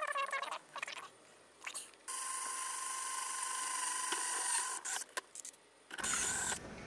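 Power drill with a step drill bit running steadily for about three seconds as it bores an 8 mm hole through the wall of a clear plastic storage container. Brief handling clicks come before and after it.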